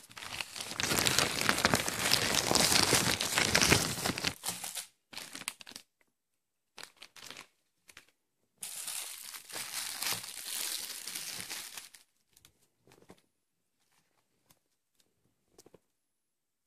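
Plastic courier mailer and the black plastic bag inside it crinkling as a hand rummages in them and pulls out a book: a long loud spell of crinkling, a pause with a few short rustles, then a second spell about nine seconds in, and faint rustles near the end.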